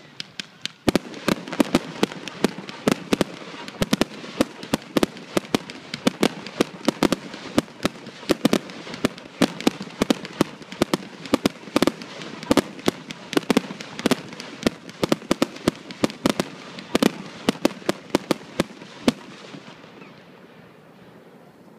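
Fireworks display at full barrage: rapid bangs of bursting aerial shells, several a second, over a continuous crackle. The barrage stops about nineteen seconds in.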